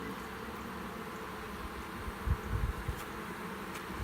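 Honey bees buzzing around an open hive, a steady drone of many bees. A few low bumps about two and a half seconds in.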